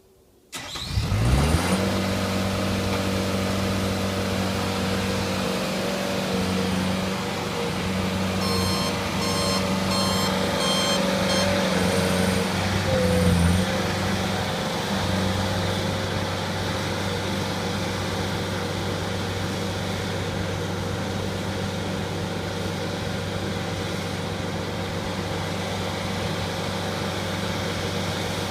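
Bobcat skid-steer loader engine starting up and coming up to a steady run. A reversing alarm beeps about half a dozen times near the middle as the machine backs up.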